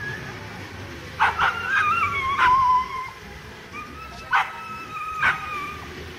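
Azawakh sighthounds barking and whining: about five short, sharp barks, with two long, wavering high-pitched whines in between, the excited cries of dogs at a lure coursing.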